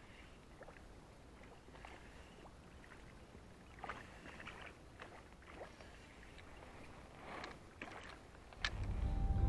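Faint water splashes and lapping around a kayak over a low rumble. Music comes in near the end.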